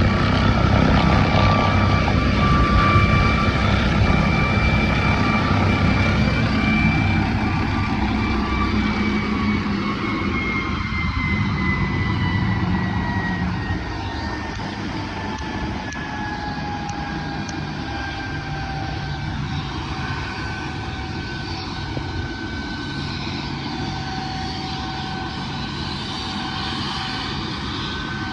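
Helicopter turbine whine over the beat of the rotor, steady at first. The whine then slowly falls in pitch over about ten seconds, and the noise eases off partway through.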